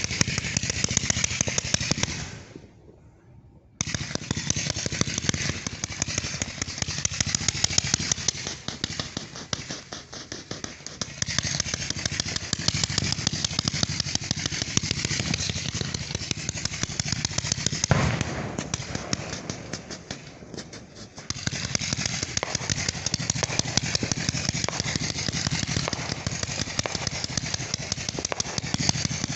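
Fireworks grand finale: a continuous barrage of rapid bangs and crackling. It breaks off briefly near the start and dips again about two-thirds of the way through.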